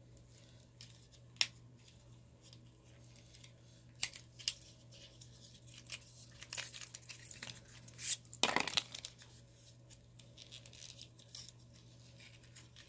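Hands working at the packaging of a lipstick: faint tearing and rustling of paper and cardboard with scattered small clicks, and one louder scraping rustle about eight seconds in, as the package resists being opened.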